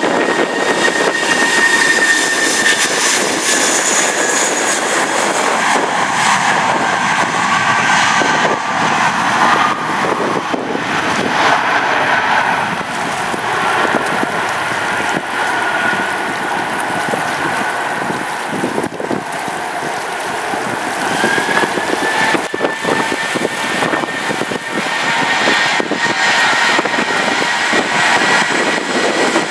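Airbus A320 turbofan engines running as the airliners taxi: a steady loud rush with a high whine that slides lower in pitch and, past the middle, rises again.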